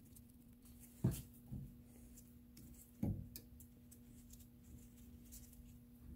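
Light metallic knocks and taps as a brake caliper and its bolts are handled and fitted by hand: two louder knocks about two seconds apart with a softer one between, over a steady low hum.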